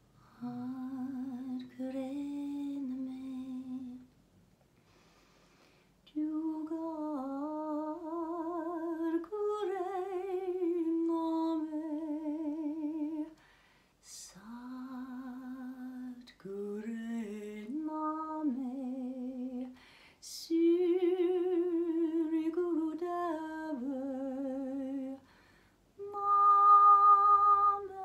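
A woman singing a slow wordless melody in long held notes with vibrato, in several phrases separated by short pauses.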